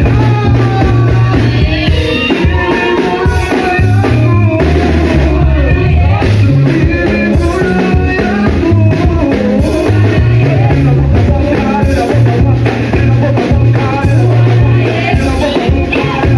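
Upbeat music with singing over a steady bass line and drums.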